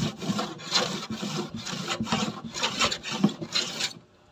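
Wooden hand plane shaving the edge of a plywood cabinet in quick back-and-forth strokes, about two a second, stopping about four seconds in.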